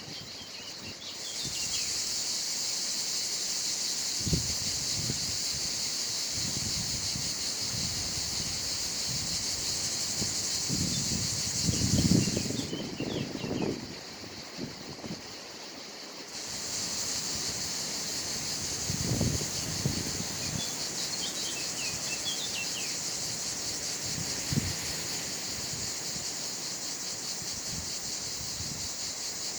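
Insects buzzing steadily in a high, shrill band; the buzz breaks off for a few seconds near the middle and then starts again. Scattered bird chirps and a few low dull thumps or rumbles, loudest around the middle, are mixed in.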